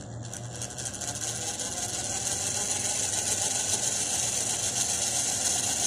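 Small solar-powered motor and plastic gearbox of a toy windmill kit whirring steadily as it spins the fan, growing louder over the first couple of seconds.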